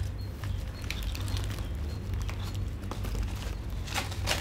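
Newspaper wrapping and plastic strapping handled while unwrapping a potted plant: scattered light rustles and clicks, with a louder burst of paper rustling about four seconds in, over a steady low hum.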